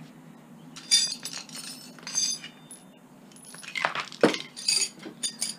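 Metal clinking: loose steel hand tools and tap parts knocking together as they are handled, several sharp clinks with a bright ring.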